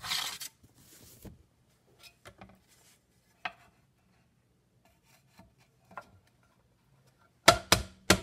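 Scraping and clattering on a clay-coated potter's wheel head as it is cleared with a tool: a rasping scrape at the start, scattered small scrapes and clicks, then a few loud sharp knocks near the end.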